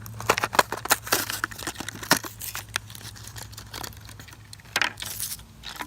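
Plastic blister pack and cardboard card of a Hot Wheels toy car being torn and crinkled open by hand: a dense run of crackles in the first two seconds, then scattered crinkles, with a louder crackle about five seconds in. A steady low hum runs underneath.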